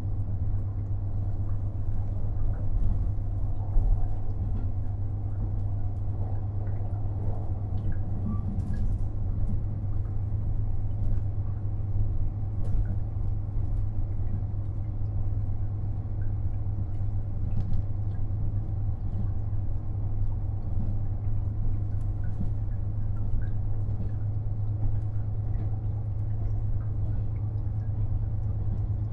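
KiHa 48 500-series diesel railcar running: a steady low diesel engine hum and rumble at an even pitch, with a few faint scattered clicks.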